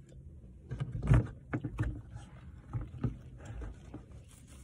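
A few soft knocks, thumps and creaks of someone moving about and handling things inside a car cabin, the loudest about a second in.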